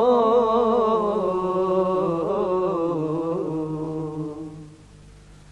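A group of men singing a devotional salam, holding one long wavering note that fades away about four and a half seconds in.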